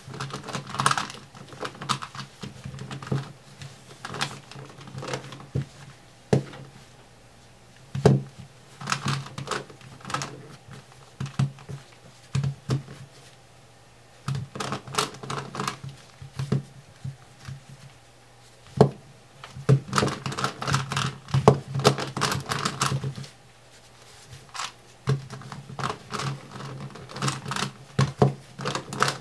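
Rex Cube twisty puzzle being turned by hand: quick, irregular runs of plastic clicking and clacking as its corners are twisted, broken by short pauses.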